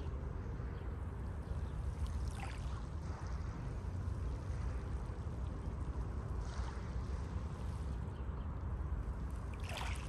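Sea waves breaking and washing over the pebbles of a shingle beach: a steady low surf rumble, with a few brief hissing washes of water over the stones, one about two and a half seconds in and a stronger one near the end.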